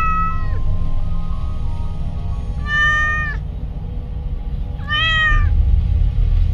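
A cat meowing three times, short calls roughly two and a half seconds apart, over background music.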